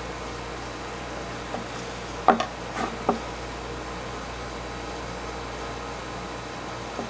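A few short knocks of a knife and meat on a cutting board, bunched about two to three seconds in with one more near the end, over a steady machine hum.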